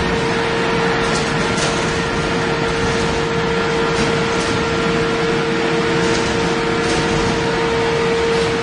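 A steel equalizing (flattening) line running as hot-rolled steel sheet feeds through its rollers: a steady, loud machine din with a constant whine and a few faint ticks.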